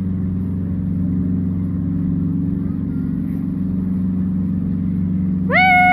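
A motor runs steadily with a low, even hum. Near the end a loud high tone comes in, rising briefly and then holding.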